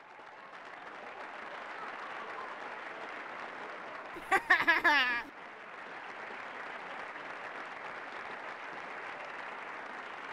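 A large crowd applauding and cheering, a steady wash of clapping that fades in at the start. About four seconds in, a single loud, wavering cry rises above it for about a second.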